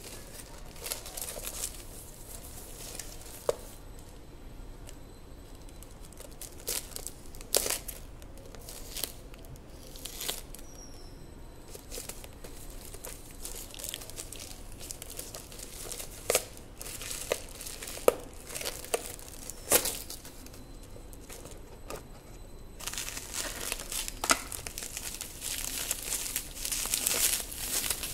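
Plastic courier mailer bag crinkling in the hands and being torn open, with scattered sharp rips and crackles. Near the end the crinkling turns dense and continuous as the bubble-wrapped package inside is handled.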